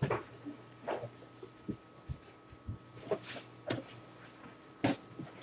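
Scattered soft knocks, scuffs and breathy rustles of people moving close to a webcam microphone, over a faint steady hum.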